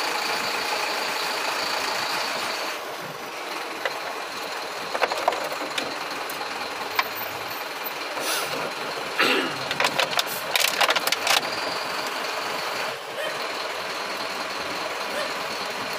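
Vehicle engine and traffic noise heard from a vehicle crawling in congested street traffic. A steady high-pitched whine sounds in the first few seconds and returns near the end. A burst of sharp clicks and rattles comes about ten seconds in.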